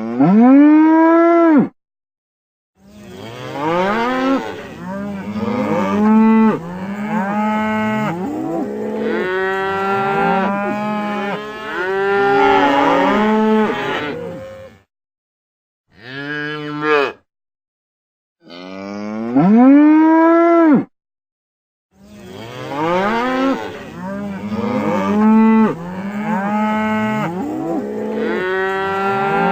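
Cattle mooing: several cows calling over one another in long moos that rise and fall in pitch. The calls are broken by a few short, sudden gaps of silence where one clip cuts to the next.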